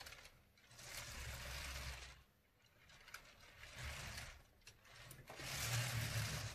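LEGO Technic 42082 rough-terrain crane model rolled back and forth by hand on a tabletop: plastic wheels and drivetrain whirring and rattling in three pushes. The rear-axle cracking that comes when steering and reversing does not show up.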